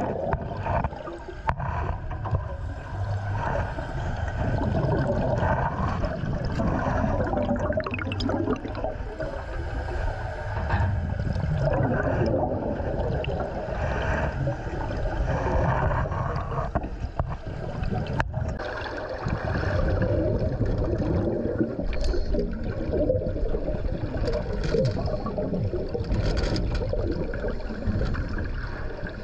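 Sea water sloshing and gurgling, a dense rushing sound with occasional clicks, in several pieces cut together.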